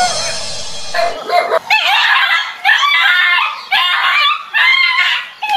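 A dog crying out in repeated high-pitched yelps that bend in pitch, frightened by a toy tiger pushed onto it, after a brief scuffling noise at the start.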